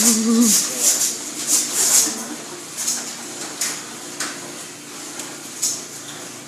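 Garage door opener running as the door closes: a steady hum with repeated sharp rattling clicks.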